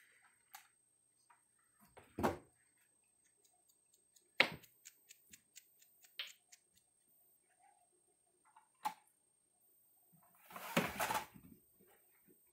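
Scattered knocks, light clicks and rustles from pet macaques moving about and handling a small red plastic toy, with a quick run of light clicks about four to six seconds in and a longer rustle near the end.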